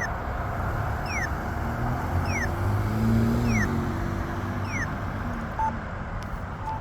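Campbell accessible pedestrian signal push button sounding its locator tone: a short falling chirp about once a second, five times, stopping about five seconds in. Road traffic rumbles underneath, with a vehicle passing near the middle.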